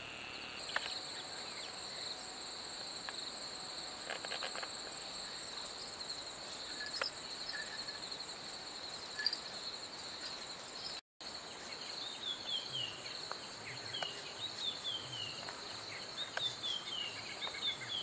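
Steady high trilling of insects throughout. About two-thirds of the way in, small birds begin a run of short, falling call notes, repeated again and again: their alarm calls at a kite circling overhead.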